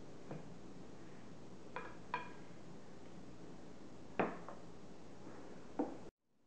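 A metal spoon clinking against a glass bowl about six times, irregularly, each clink ringing briefly, while dessert layers are spread and sprinkled. The sound cuts off abruptly near the end.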